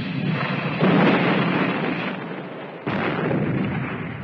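Artillery gun firing twice, about two seconds apart, each boom dying away slowly over about two seconds.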